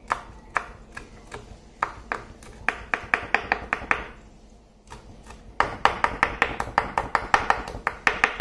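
Kitchen knife chopping culantro leaves on a wooden cutting board: a few scattered taps, then a quick run of chops about six a second, a short pause about four seconds in, and another quick run from just past halfway.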